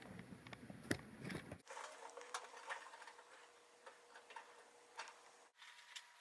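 Faint, irregular light clicks and ticks over quiet room tone, with the background changing abruptly twice.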